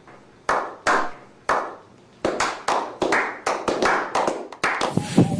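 A small group of people clapping. Three slow, separate claps come first, then the clapping quickens into fast, continuous applause.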